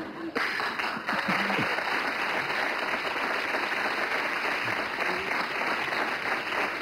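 Studio audience applauding, starting about half a second in and keeping up steadily.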